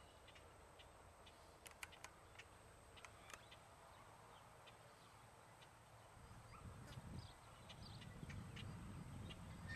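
Near silence outdoors: faint scattered clicks, and a low rumble that grows from about six seconds in.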